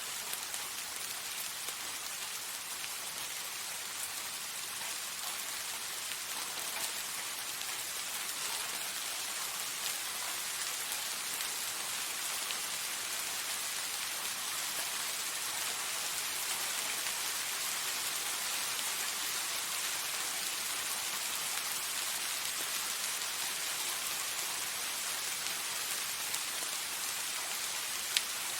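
Soft rain falling steadily: an even hiss of rain with scattered drops tapping on a surface, and one sharper drop tap near the end.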